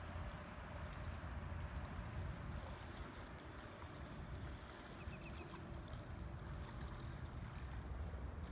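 Outdoor ambience: a steady low rumble under a soft hiss, with a faint high whistle about three and a half seconds in.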